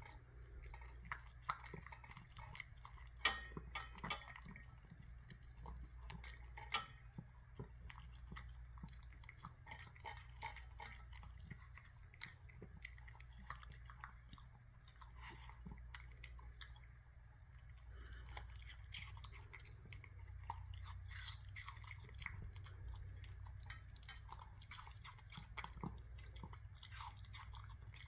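A small dog chewing and crunching bits of crisp yellow apple, irregular wet crunches that go on without pause. A few louder crunches come about three, four and seven seconds in.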